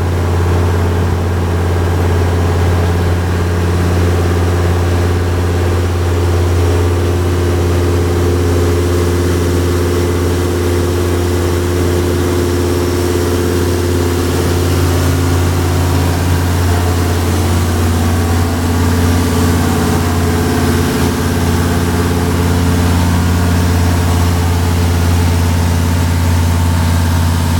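Turbo-diesel inboard engine of a jet boat running steadily under way, a loud, deep, even drone; its note shifts slightly about two-thirds of the way in.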